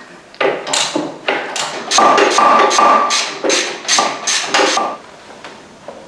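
A hammer striking metal about a dozen times in quick succession, several blows with a ringing tone, stopping about five seconds in.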